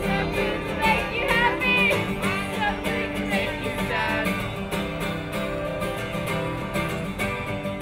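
Acoustic guitar strummed while a group of children and adults sing along. The singing fills the first few seconds, then the voices drop out about halfway and the last guitar chord rings on.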